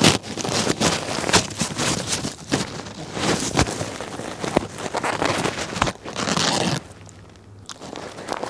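Small dog tearing and chewing a paper tissue close to the microphone: a rapid run of crinkles, rips and crackles, easing to a quieter moment near the end.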